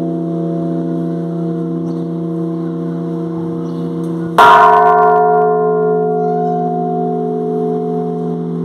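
A large church bell rings as its clapper is pulled by a rope. The hum of the previous stroke carries on until, about four and a half seconds in, the clapper hits the bell once more, loudly. The ringing then slowly fades.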